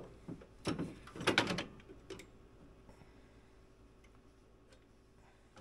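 A few short clicks and scrapes of metal on metal in the first two seconds or so, then faint small ticks: a pocket knife prying apart the pads of a snowmobile's disc brake caliper.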